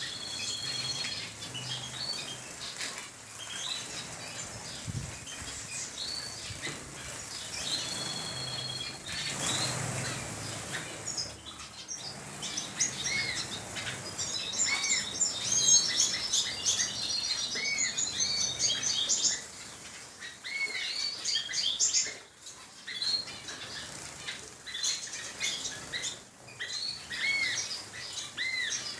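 A mixed flock of small aviary birds, finches and canaries, chirping and calling over one another, with many short arched call notes repeated every second or two. There are also flutters of wings.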